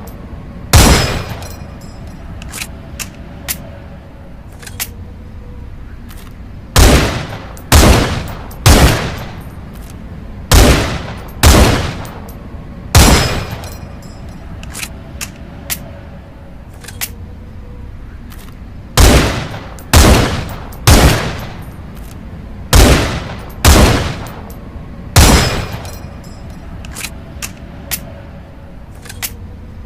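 M182 Pierre rifle shots, about fourteen in all, fired in groups of two to four with roughly a second between shots, each ending in a short decaying tail. Quieter clicks fall in the pauses between groups.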